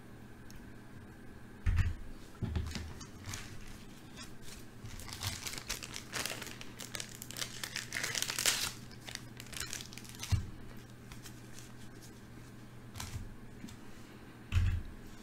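Crinkling and rustling of something being handled, densest for a few seconds around the middle, with several dull low thumps, the loudest about two seconds in and just before the end.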